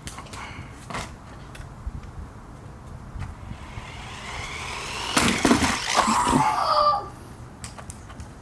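Small electric motor of a toy-grade 1:20 scale RC monster truck whining and rising in pitch as it speeds up, loudest for about two seconds with a few knocks and clatter, then cutting off. Scattered light ticks come before it.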